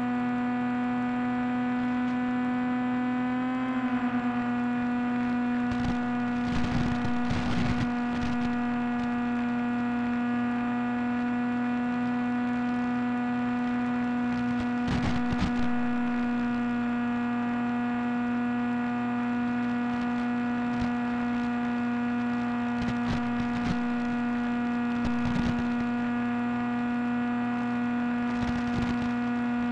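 Steady whine of a small electric-powered FPV plane's motor and propeller, heard through the onboard camera's microphone over the video downlink, its pitch stepping up slightly about four seconds in. Brief bursts of hiss break through several times.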